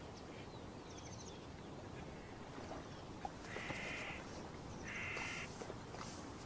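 Two short, buzzy animal calls about a second and a half apart over a faint outdoor background, with a few faint high chirps.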